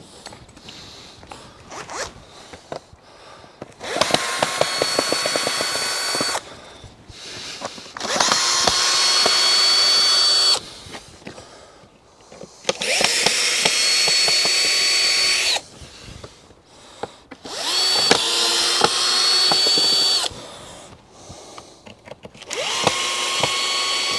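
Cordless drill running in five short bursts of two to three seconds each, backing screws out of the tunnel's timber door frame; each run starts with the motor whine rising to a steady pitch. Light knocks and handling sounds come between the bursts.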